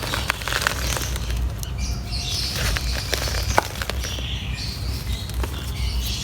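Dry mud being crumbled by hand, crackling and rustling with many small sharp clicks as the chunks break apart.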